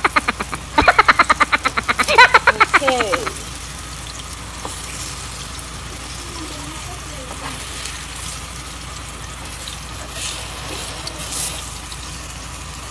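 Bananas frying in hot oil in a pan, the oil sizzling steadily. For the first three seconds a loud, fast-pulsing voice-like sound runs over the sizzle.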